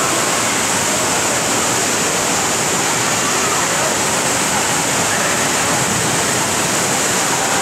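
Steady rushing and splashing water of an indoor water park's pools and water features, with faint voices of swimmers mixed in.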